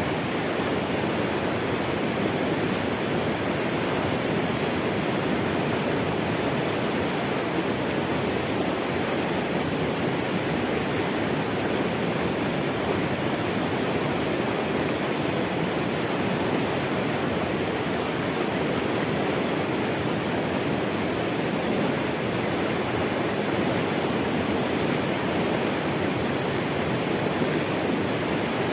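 Running water: a steady, even rush of flowing water, as of a stream or small waterfall.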